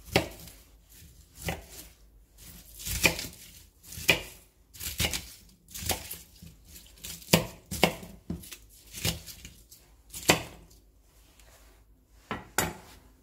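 Kitchen knife chopping cabbage on a cutting board: a dozen or so irregularly spaced chops, each with a short crunch as the blade goes through the leaves.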